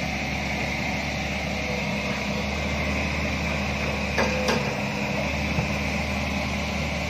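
Excavator diesel engine running steadily as its bucket scoops soil out of a steel dump truck bed, with two sharp metal knocks about four seconds in.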